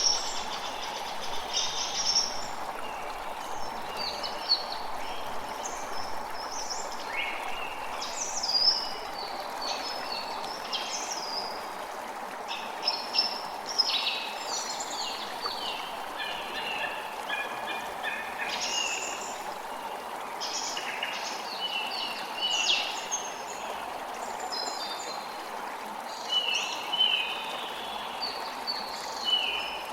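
Forest ambience: many birds calling and chirping in short, high phrases over a steady rushing background like a stream.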